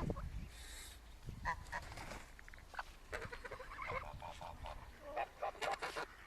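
A flock of domestic ducks and geese calling quietly, with scattered short quacks and honks that come thicker in the second half.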